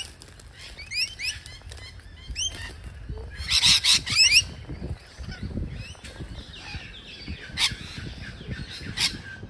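Rainbow lorikeets screeching: a string of short, sharp rising calls, loudest in a dense burst about three and a half to four and a half seconds in, with two more shrill screeches near the end.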